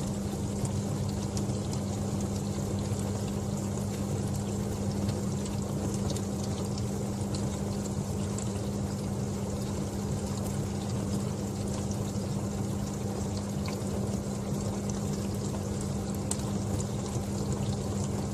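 Dishwasher running mid-cycle: a steady low pump hum under continuous spraying and splashing water, with faint scattered ticks.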